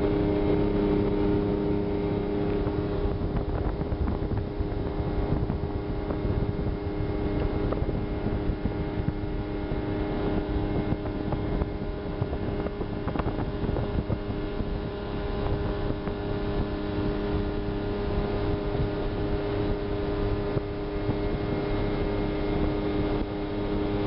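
1979 Volvo Penta 400 boat engine running at a steady speed: a constant drone that does not change, with wind and water rushing past the hull.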